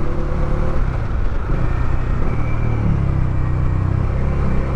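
Bajaj Dominar 400 motorcycle engine running under way, heard with road and wind noise through a lavalier mic inside the helmet. The engine note steps up about three seconds in and drops back a second later.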